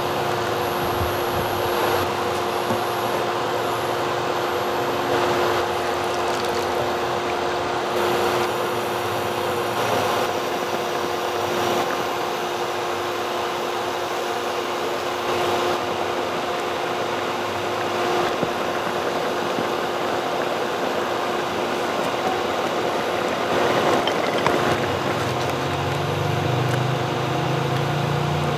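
Steady mechanical hum with a constant tone over a noisy hiss, like a fan or motor running. A lower, wavering drone joins it near the end.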